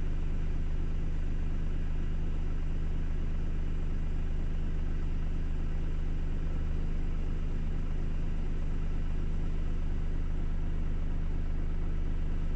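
Scania 410 truck's diesel engine idling steadily, a low even hum.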